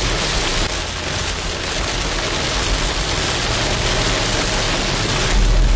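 Heavy rain falling on a car's windscreen and body, heard from inside the car, as a steady hiss over a low vehicle rumble. A brief louder low rumble comes near the end.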